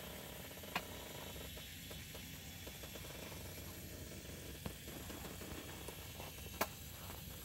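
Faint steady mechanical hum and hiss, broken by three sharp clicks: about a second in, near five seconds, and the loudest near the end.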